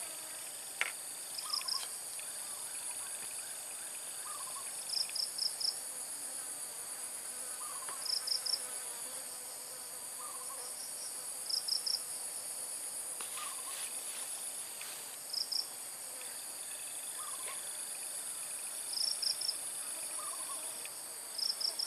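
Steady high-pitched insect chorus. Over it, a short call of three or four quick pips repeats about every three seconds, with a fainter low chirp between the calls.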